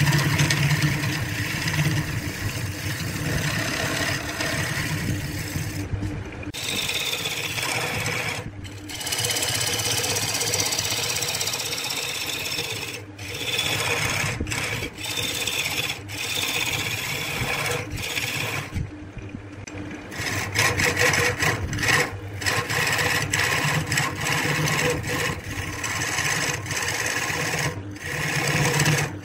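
Wood lathe running with a steady motor hum while a hand-held turning chisel scrapes and cuts a spinning laminated wood blank. The sound drops out abruptly for a moment several times.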